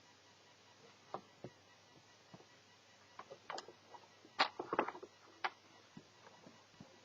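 Scattered small clicks and taps, with a quick run of louder clicks about four and a half seconds in: small plastic and metal parts of an Asus Eee PC netbook being handled during disassembly.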